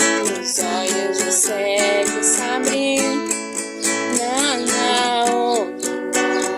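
Acoustic guitar playing a slow worship melody over strummed and plucked chords, with a melody line that bends and glides in pitch about two-thirds of the way in.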